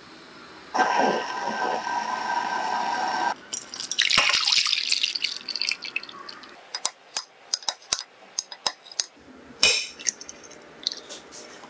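Close-miked kitchen prep sounds: a steady squeaky tone for about two and a half seconds, then liquid pouring into a glass dish, then a run of sharp clicks and taps as a metal spoon scoops set jelly from the glass dish.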